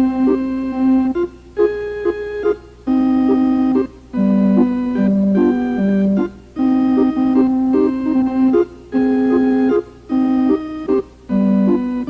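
Organ music: a slow melody of held notes, played in short phrases with brief pauses between them.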